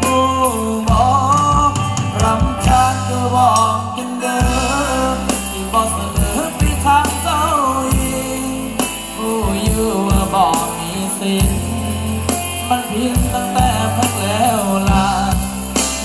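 Live band music with a singer: a Thai song sung over a steady bass line and percussion.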